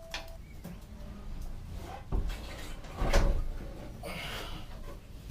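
A few sharp knocks and bumps, the loudest about three seconds in, with some rustling in between: objects being handled and bumped in a small enclosed space.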